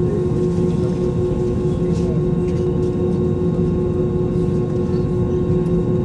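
Steady cabin drone of an Airbus A320 on the ground, heard from inside the cabin: a constant low rumble with an unchanging whine from the engines and air systems.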